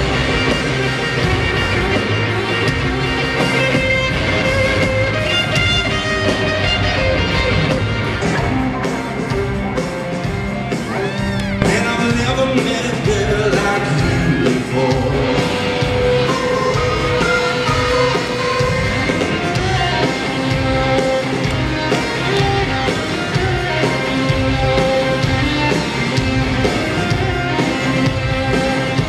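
Rock band playing live in an arena, recorded from the audience: loud, steady music with a drum beat and a singing voice.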